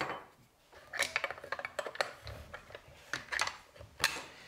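Small metal parts and a spanner clinking and tapping as they are handled at a plunge router's collet and base: irregular sharp clicks, starting about a second in.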